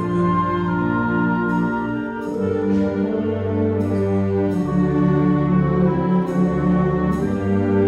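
Community concert band playing a medley of Christmas carols: held brass-led chords over a low bass line, changing every second or two.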